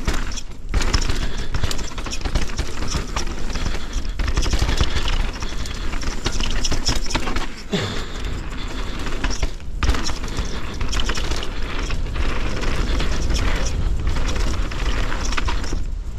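Enduro mountain bike ridden fast over rough, technical singletrack: a continuous dense clatter and rattle of tyres, chain and frame over rocks and roots, over a low rumble. The clatter eases briefly a few times.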